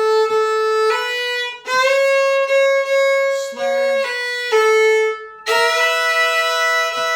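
Solo fiddle playing a melody phrase of a bluegrass tune in the key of A, with bowed notes changing every half second to second and short breaks between bow strokes as it works in a single-shuffle rhythm and a slur.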